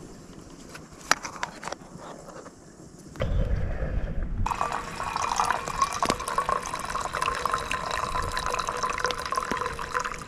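Brewed coffee poured from a camp pot through its French-press lid into a stainless steel mug: a steady splashing pour that starts about four and a half seconds in. Before it come a few light clicks and knocks.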